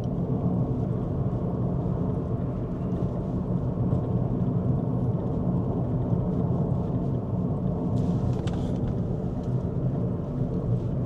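Steady low road and tyre rumble heard inside a moving car's cabin, with a few faint clicks about eight seconds in.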